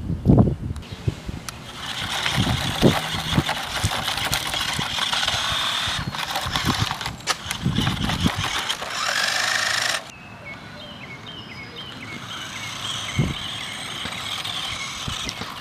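Sharper Image X Bull Racer toy RC car's small electric motor and gears whirring, with its knobby tyres crackling over the ground. The whir rises in pitch about nine seconds in. Near ten seconds it cuts off abruptly to a quieter outdoor background.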